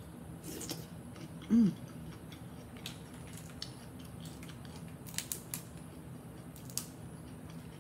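Boiled crawfish shells being cracked and peeled apart by hand, with scattered small cracks and clicks. About a second and a half in, a brief hum from the eater's voice, falling in pitch.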